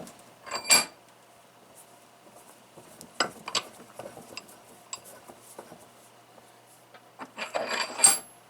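Columbian 504 cast-iron bench vise being worked by hand: the steel handle slides through the screw head and clanks against its end stops with a metallic ring, sharply about a second in and again near the end, with lighter clicks in between.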